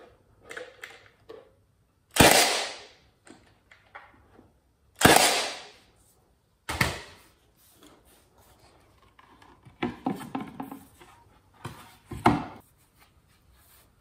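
Cordless brad nailer driving nails into the painted wood box: several sharp shots, each fading out over about half a second, with lighter knocks and clicks from handling the wood in between.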